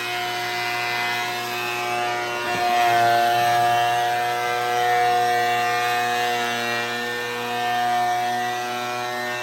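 DeWalt 12.5-inch 15-amp benchtop planer running loud and steady with a shop vac drawing off the chips, planing a board in a single pass; it grows louder about three seconds in.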